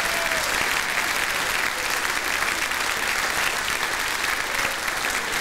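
Large audience applauding steadily, many hands clapping together.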